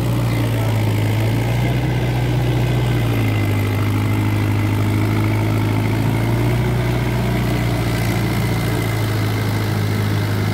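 Mahindra tractor's diesel engine running steadily under load while it pulls a rotary tiller through a flooded, muddy paddy field.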